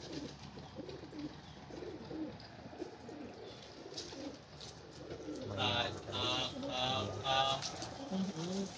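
Domestic pigeons cooing, low warbling coos through the whole stretch. About two thirds of the way in, a louder pitched sound pulses four times.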